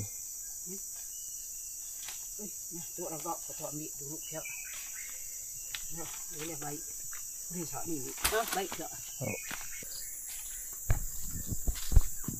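Insects buzzing in a steady high chorus, with a few low thumps near the end.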